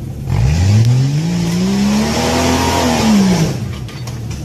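Off-road SUV engine revving hard on a steep rock climb, its pitch rising steadily for about two seconds with a loud hiss over it. Near the end the revs fall away as the vehicle tips over backwards.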